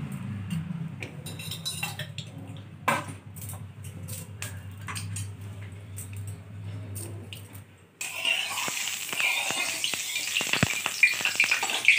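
Low hum with a few clinks of utensils. About eight seconds in, a loud, steady sizzling starts suddenly: pieces of turmeric-marinated rohu (rui) fish frying in hot oil in an aluminium kadai.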